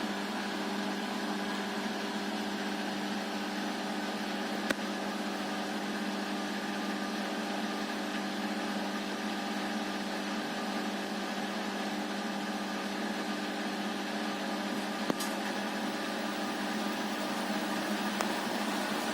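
Siemens iQ500 varioPerfect washing machine with its iQdrive motor turning the drum in an interim spin with an unbalanced load, a steady hum and whine. Two sharp clicks, about 5 and 15 seconds in.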